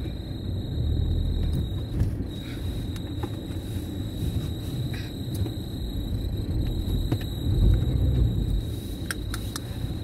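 Low rumble of a car's engine and tyres heard from inside the cabin as the car labours through deep snow, swelling about a second in and again near eight seconds.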